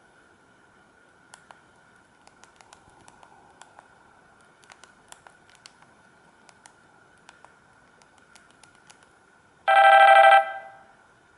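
Faint scattered clicks of a Samsung GT-C3752 mobile phone being handled and its keys pressed. About ten seconds in, the phone's speaker sounds a loud electronic ring tone for under a second, which then fades out.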